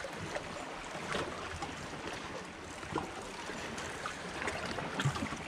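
Steady wash of sea water against shore rocks, with a few faint clicks.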